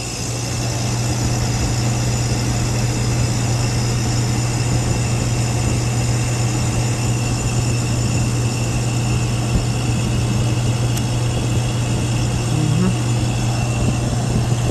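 Refrigeration compressor starting and running with a steady low hum that comes up over about the first second. Its reed valves have failed, so it runs without pumping: suction and discharge pressures stay almost equal.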